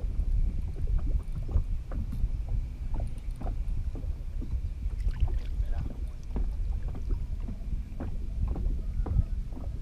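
Small waves lapping and slapping against a fishing boat's hull: irregular short knocks over a steady low rumble.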